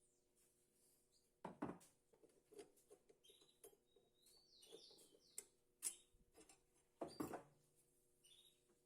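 Faint, scattered clicks, knocks and light scrapes of small hard objects being handled, the loudest around two seconds in and again near the end, with a few short high chirps in the middle.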